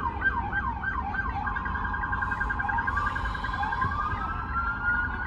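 Emergency vehicle siren: quick rising yelps about three a second, changing about a second and a half in to a rapid warble with slower rising wails over it. A steady low traffic rumble lies underneath.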